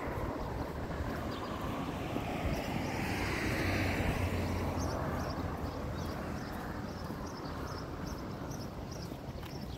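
A motor vehicle passing by, swelling to its loudest about three to four seconds in and then fading, over steady outdoor traffic noise.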